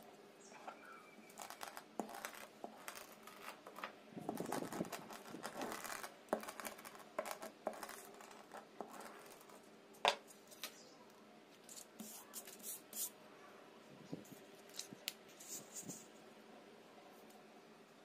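Strip of aluminium oxide sandpaper and a roll of adhesive tape being handled on a desk: paper rustling and crinkling, tape pulled and torn, with scattered small taps. A sharp click about ten seconds in is the loudest sound.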